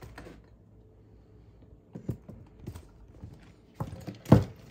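Scattered light clicks and knocks of kitchen things being handled and set down on a counter, with one sharp, louder knock near the end.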